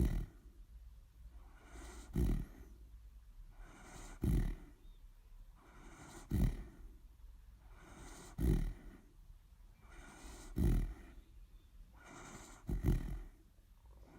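A dog snoring in an even rhythm, about one snore every two seconds, seven in all. Each is a soft airy breath followed by a short, loud, low snore.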